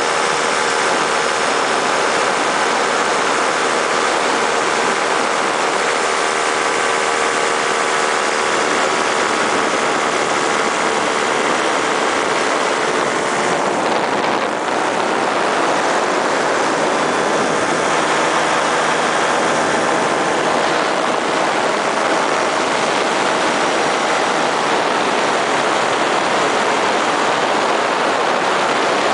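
Paramotor engine and propeller running steadily in flight, mixed with rushing wind noise, with a brief dip in power about halfway through.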